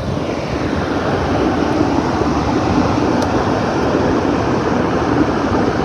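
A 10-ton rooftop package unit running: a steady, loud rush of air and machinery with a faint low hum underneath.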